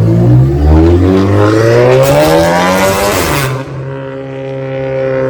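A modified car's engine accelerating hard, its note rising for about three seconds with a loud rushing exhaust near the top. It then falls to a steady, even note.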